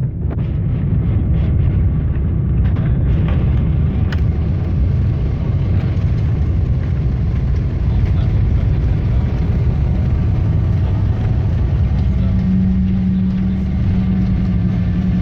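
Airliner cabin noise: a loud, steady low rumble, with a steady low hum coming in about twelve seconds in.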